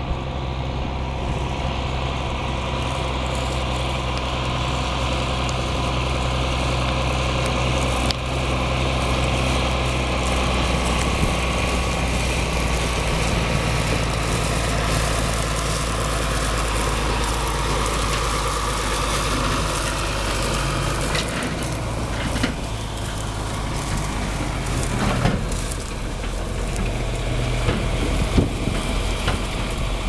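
John Deere 4440 tractor's six-cylinder diesel engine running steadily as it pulls a large chaser bin across stubble, with scattered knocks in the last third.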